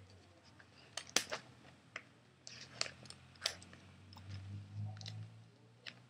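Scissors cutting slowly into a paper envelope: a few irregular, faint snips and paper crackles, with pauses between cuts.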